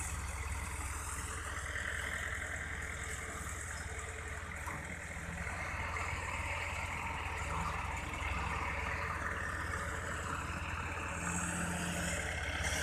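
Diesel engine of an ACE pick-and-carry mobile crane running steadily, a low, even hum.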